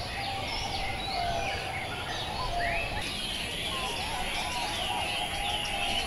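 A chorus of caged zebra doves with other birds: low, repeated cooing notes under many overlapping high chirps and whistles, over a steady low background noise.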